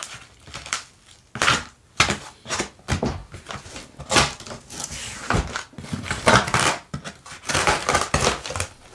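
A cardboard shipping box being opened: a blade cutting through plastic packing tape, then the box handled and its cardboard flaps pulled open, in irregular scrapes, rustles and knocks.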